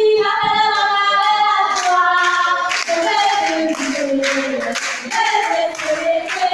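A group of voices singing a song together, with steady rhythmic handclapping keeping the beat from about two seconds in.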